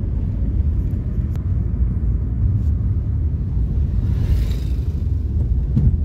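Car cabin noise while driving: a steady low engine and road rumble, with a brief hiss about four seconds in.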